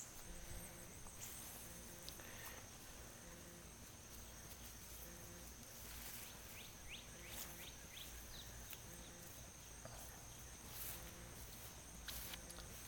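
Faint outdoor ambience: a steady high insect trill, with a few short high bird chirps about six to seven seconds in.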